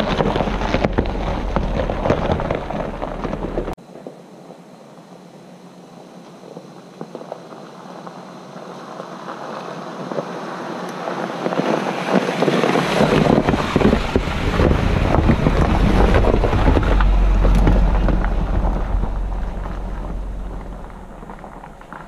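Vehicle driving, with wind buffeting the microphone. The sound cuts off abruptly about four seconds in, then swells up louder again and fades near the end.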